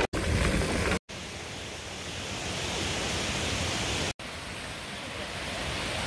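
For about the first second, wind rumbling on the microphone of a moving mountain bike. Then, after an abrupt cut, the steady rushing hiss of a mountain stream tumbling over rocks.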